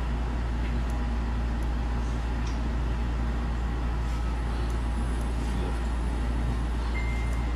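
Steady low rumble with a constant hiss of background noise, unchanging throughout, with a few faint ticks and a brief high tone near the end.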